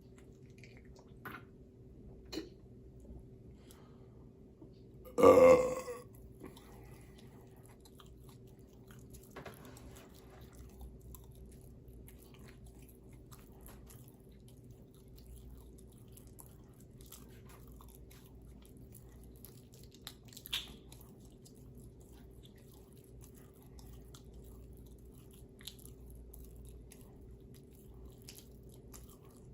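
A person burping once, loud and lasting under a second, about five seconds in. Otherwise only a few faint clicks over a low steady background hum.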